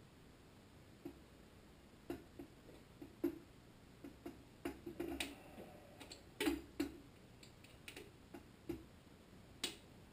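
Irregular small clicks and taps of a hose clamp and fuel line being handled and fitted at a small-engine carburetor, with a short rubbing sound a little after five seconds in.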